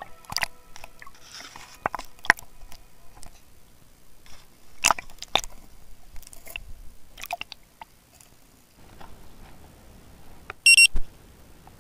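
Irregular clicks and knocks picked up by a camera held underwater, water and handling noise against its housing. After that comes the steady rush of river water, and a very short, loud burst with a tone in it near the end.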